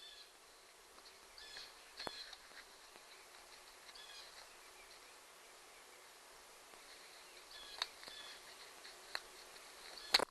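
Faint bird chirps over a steady background hiss, with a few sharp clicks or light knocks, the loudest near the end.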